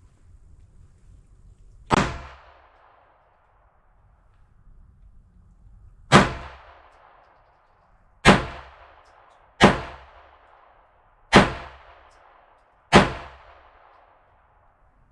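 Polish P-64 pistol firing 9x18mm Makarov rounds: six single shots at uneven intervals, each followed by a short echoing tail.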